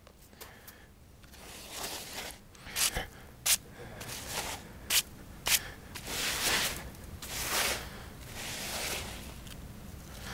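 Stone paving blocks handled on a sand bed: a few sharp clacks of stone knocking on stone in the first half, then longer stretches of gritty scraping as a block is shifted and set in the sand.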